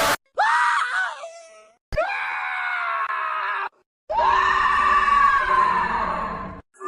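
Cartoon crying sound effects, one after another: a short wail that jumps in pitch and fades out, then two longer steady wails, each cut off abruptly.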